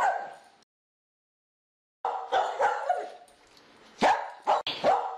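Small dog yapping in quick short barks, which break off just under a second in, leave a second of dead silence, then start again around two seconds in, the sharpest barks coming about four seconds in.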